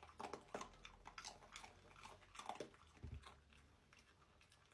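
Faint chewing and crunching: a run of small wet clicks and crackles that thins out, with a soft low thump a little after three seconds.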